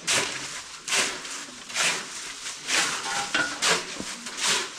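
Repeated swishing strokes, about one a second.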